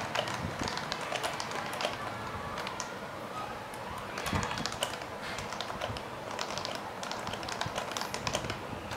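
Continuous fast typing on a Topre-switch keyboard: a rapid, unbroken run of keystrokes.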